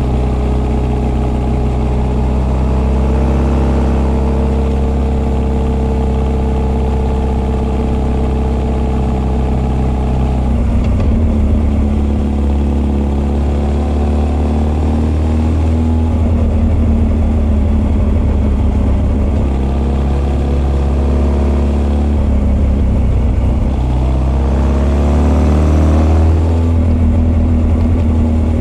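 Honda CB1300 SF inline-four engine, breathing through Keihin FCR41 carburettors and an r's gear Wyvern full exhaust, pulling the bike along with intake roar and exhaust note together. The revs hold steady for about ten seconds, the note changes about eleven seconds in, then it rises and falls with the throttle and swells near the end.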